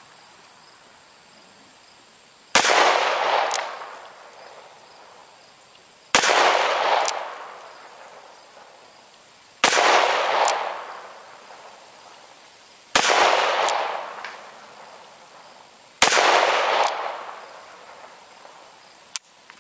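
Smith & Wesson .38 Special revolver fired five times, slow deliberate single shots about three and a half seconds apart. Each sharp report rings out for about a second, with a fainter crack just under a second after it.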